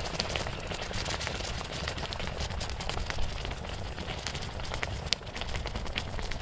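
Quicklime slaking in water in a metal basin, fizzing and crackling with many tiny pops as it boils up and gets hot. A few sharper clicks stand out, with a low rumble underneath.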